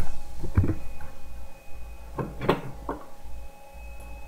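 A few scattered clicks of computer keys and a mouse during code editing, strongest right at the start and about two and a half seconds in, over a steady low hum.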